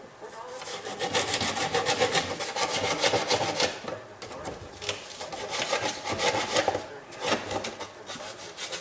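Toothbrush scrubbing the cracks of a Bakelite radio cabinet in rapid back-and-forth strokes, with two short pauses.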